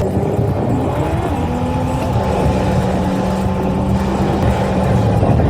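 Car engine running with a steady hum, its pitch rising and falling as it accelerates.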